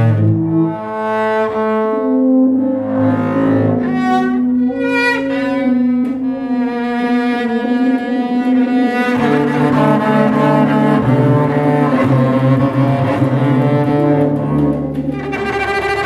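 Free-improvised duo of bowed double bass and tuba: long, overlapping low notes held for a second or more each, shifting pitch from one to the next.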